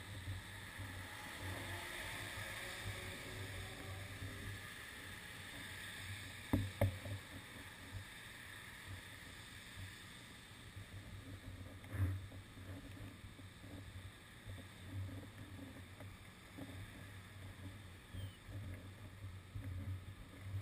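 Faint wet-road traffic noise in rain: an even hiss of rain and tyres on wet pavement, with low rumbles from the queued cars coming and going. Two sharp knocks, about six and twelve seconds in.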